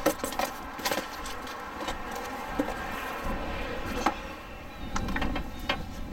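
Cardboard boxes being handled and pushed into place, with scattered knocks and scrapes at irregular times.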